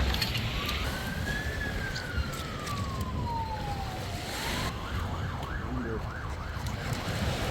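Siren wailing: one pure tone rises, then falls slowly. About four and a half seconds in it switches to a fast yelp, rising and falling about four times a second.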